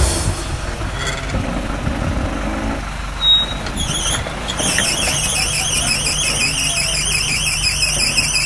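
Short-wheelbase Land Rover Defender's engine running at low revs as it crawls across a steep, rutted slope. A high, wavering squeal sits over it from about halfway through.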